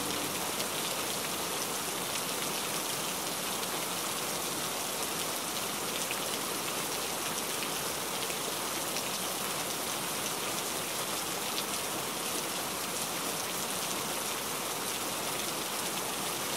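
Steady rain falling on window glass, an even hiss with scattered taps of single drops.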